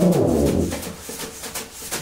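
Tuba and tenor saxophone end a long held note with a short downward slide. A brief lull follows with light taps from the drum kit, before the band comes back in.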